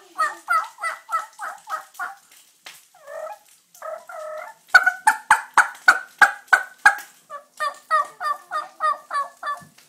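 A man imitating a wild turkey with his voice alone, no call device: runs of short two-pitched notes, about three to four a second, broken by a softer, rougher stretch near the middle and followed by a louder run, then another quick run near the end.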